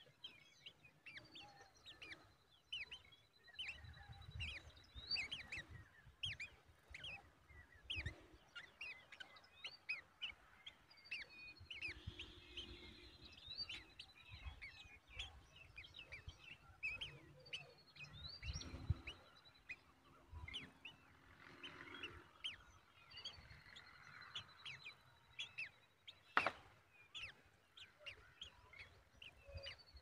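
Surrounding birds chirping and calling in many short notes, with a high, thin trilled note that recurs every several seconds. There are a few soft low thumps, and a single sharp click about three-quarters of the way through.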